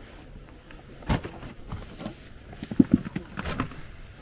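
Ride in a sled towed behind a snowmobile: snow spray pattering against the clear plastic windshield, with irregular knocks and bumps. The strongest knock comes about a second in, and a quick cluster follows near three seconds.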